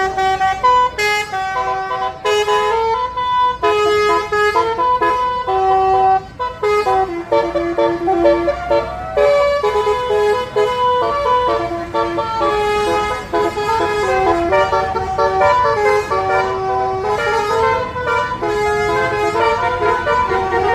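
Tour bus's 'telolet basuri' musical horn playing a quick, loud melody, its notes stepping from pitch to pitch every fraction of a second.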